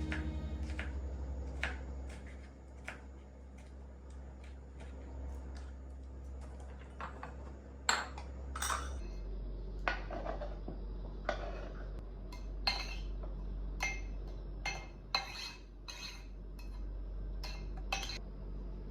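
Dishes and metal cutlery clinking and knocking as kitchenware is handled, in scattered separate strikes that come more often in the second half. A steady low hum runs underneath.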